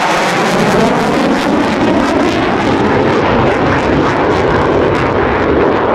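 An EA-18G Growler's twin General Electric F414 jet engines in afterburner, a loud, steady jet noise full of dense crackle as the fighter banks and flies away.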